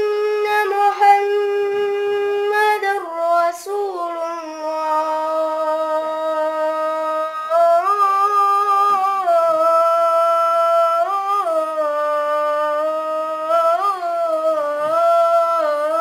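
A boy's solo voice chanting the adhan, the Islamic call to prayer, holding one long unbroken melismatic note. The pitch steps down about three seconds in, then rises into short ornamental turns three times before settling back.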